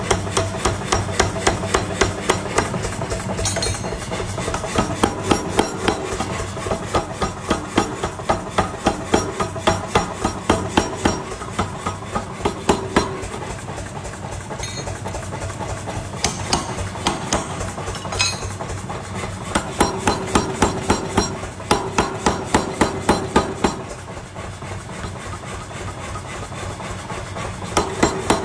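Hand-forging hammer blows on steel for a meat cleaver, struck in steady runs of about three a second with short pauses between runs.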